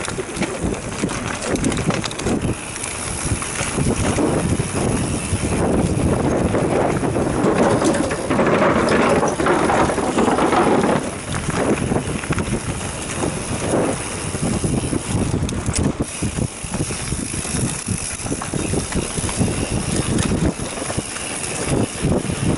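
Mountain bike riding fast down a dirt singletrack: wind buffeting the action camera's microphone over tyre rumble and a steady clatter of the bike's rattles and knocks over bumps, loudest about eight to eleven seconds in.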